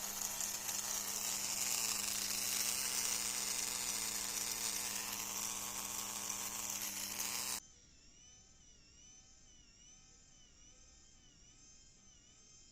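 Small electric motor of a model borewell drilling machine running at a steady whirring buzz; it cuts off abruptly a little past halfway, leaving only faint warbling tones.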